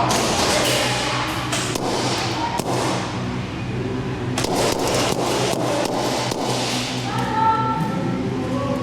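Airsoft guns firing in scattered shots and short rapid bursts, over background music.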